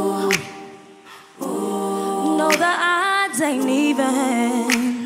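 Female vocal group singing wordless harmonies a cappella: held chords in short phrases with brief breaks between them, and a quick vocal run near the middle.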